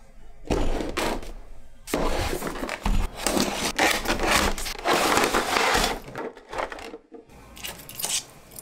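Cardboard toy box being opened by hand: the box and its inner tray scrape and rustle in loud, noisy bursts for about six seconds, then fainter handling noise near the end.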